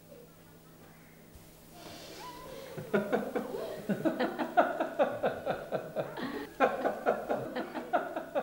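A man and a woman laughing, a long run of short repeated ha-ha bursts starting about three seconds in after a quiet start.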